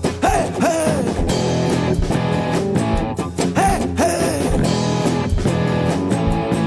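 Rock band playing an instrumental passage: an electric guitar lead bends its notes near the start and again about halfway through, over bass guitar and a steady drum beat.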